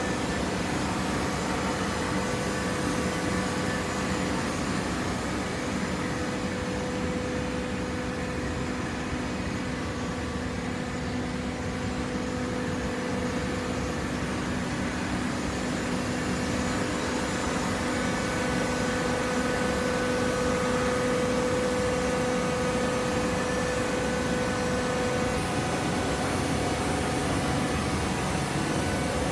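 Horizontal hydraulic carton baler running: a steady machine hum with a held tone from its hydraulic power unit, growing a little louder about two-thirds of the way in.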